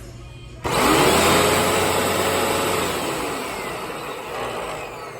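Hoover Rewind Plus Multi-Stage Cyclonic upright vacuum cleaner switched on: its motor starts abruptly about a second in and whirs up to speed, then runs down, its whine falling away toward the end.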